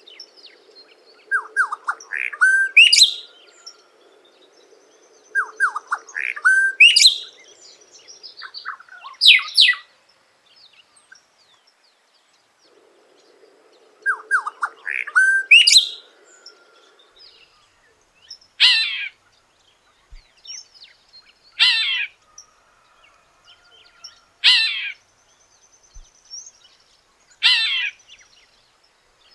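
A cacique (the 'tecelão') singing: three phrases of quick rising and sweeping notes, then a run of four short, harsh calls about three seconds apart in the second half.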